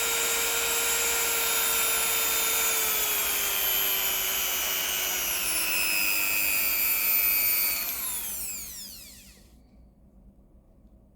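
Corded rotary tool running free with a high-pitched motor whine that slowly drops in pitch, then switched off about eight seconds in and spinning down to a stop.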